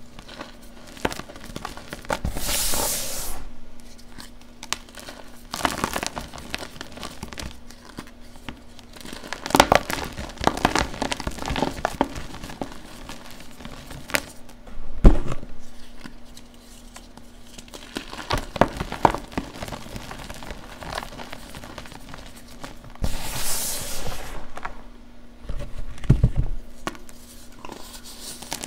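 Blocks of blue gym chalk being crushed and crumbled by gloved hands in a tub: irregular crunching and crackling, with two soft powdery hisses as chalk is squeezed and a couple of dull thumps.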